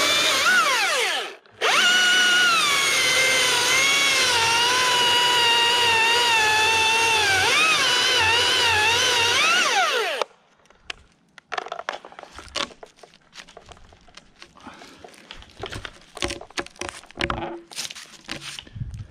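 Husqvarna T540iXP battery chainsaw cutting through a pine trunk: a high electric whine that sags and wavers in pitch as the chain loads in the cut. It stops briefly about a second and a half in, runs again for about eight seconds, and cuts off suddenly. Scattered cracks, knocks and rustles follow.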